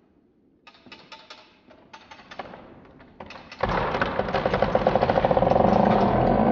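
A chainsaw starts up about three and a half seconds in and runs loudly with a fast even pulse, after a run of light clicks and knocks.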